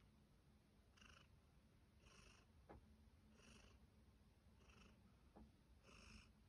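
Domestic cat purring faintly, each breath heard as a soft rasp roughly every second and a bit, with two faint clicks.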